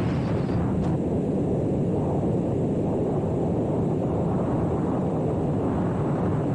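Steady rumble of a motorcycle ride: engine and road noise mixed with wind buffeting the microphone, with a brief click about a second in.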